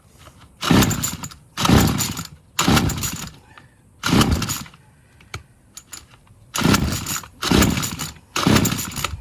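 Murray Select MS 2560 two-stroke string trimmer being pull-started with the choke off after a carburetor cleaning. Seven pulls on the recoil starter, four about a second apart, then a pause and three more. The engine turns over without settling into running.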